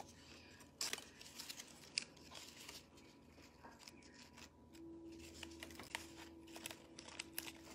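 Quiet rustling and scattered light taps of cardboard triangles and tape being handled while triangles are taped onto a cardboard dome, with a couple of sharper taps about one and two seconds in.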